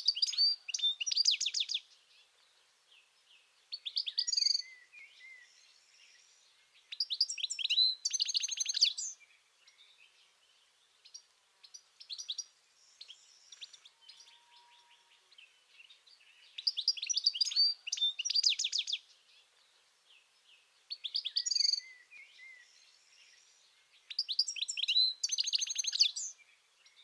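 European goldfinch singing: short bursts of rapid, tinkling twittering, repeated about six times with pauses of a few seconds between them and a longer pause in the middle.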